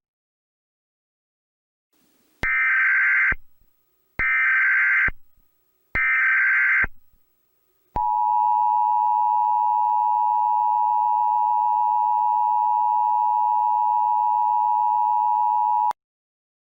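Emergency Alert System tones. After about two seconds of silence come three short, buzzy SAME header data bursts of about a second each. A second later the two-tone EAS attention signal starts, a steady harsh dual tone held for about eight seconds that then cuts off abruptly.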